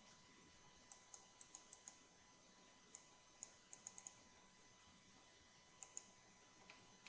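Faint clicking of a computer keyboard: a quick run of about six light key clicks, then a few more in small groups near the middle and two near the end.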